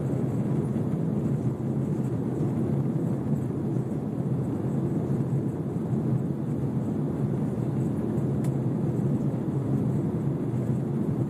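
Steady jet engine and airflow rumble of an airliner climbing after take-off, heard inside the cabin, a constant low roar with no change in pitch.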